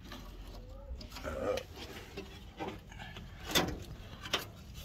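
Handling noises: a few sharp taps and knocks with some rubbing, as a hand works around bare, rusted car floor and chassis metal.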